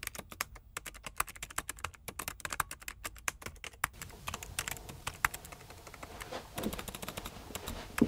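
Typing on a keyboard: rapid key clicks for about four seconds, then slower, scattered keystrokes, ending with a thump.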